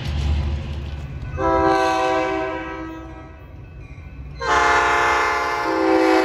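Locomotive air horn sounding a chord of several notes in two blasts: the first about a second and a half in, fading away over about two seconds; the second starting about four and a half seconds in and still sounding at the end. A low rumble of the train underlies the first second.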